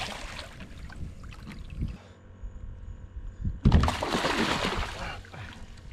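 A hooked tarpon thrashing at the water's surface against the side of a boat while held by the jaw. Splashing dies down in the first half second, then a sudden burst of heavy splashing starts about three and a half seconds in and lasts over a second.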